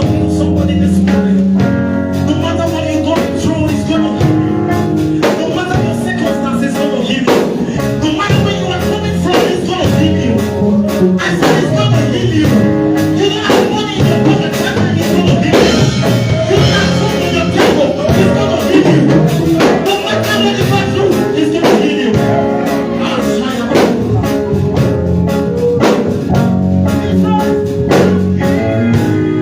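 Church worship music: gospel singing with a live band of guitar and drums, played at a steady beat.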